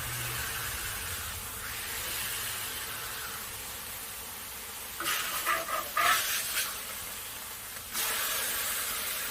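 Smashburger patties sizzling steadily on a Blackstone flat-top griddle, just after flipping, with a few short sharp clatters about five to six seconds in and the sizzle getting louder about eight seconds in.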